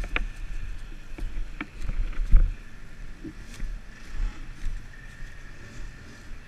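ATV engines running, a low rumble with scattered knocks and thumps, loudest in the first couple of seconds and then quieter.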